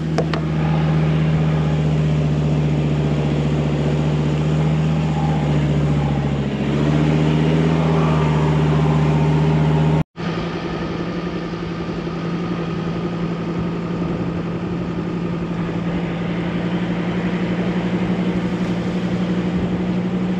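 Four-wheel-drive vehicle's engine running as it drives, its note rising about a third of the way in. A sudden break to silence about halfway, then the engine runs on steadily.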